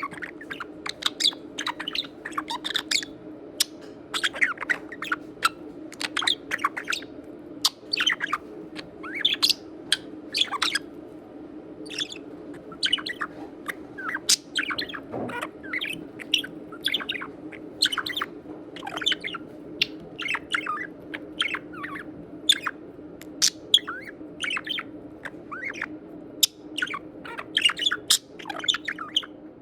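Budgerigar chattering in quick runs of short chirps and squawks, over a steady low hum.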